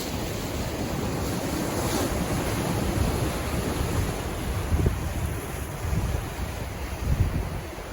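Pacific Ocean waves washing in, with one swelling to its fullest about two seconds in, and wind buffeting the microphone in low gusts.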